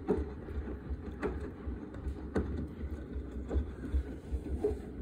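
AEG Lavamat front-loading washing machine in its wash cycle, the drum turning with sudsy water sloshing. A soft swish comes about every second over a low steady rumble.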